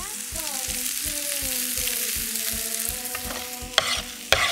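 Blanched green beans sizzling in hot olive oil in a frying pan, with two sharp knocks near the end.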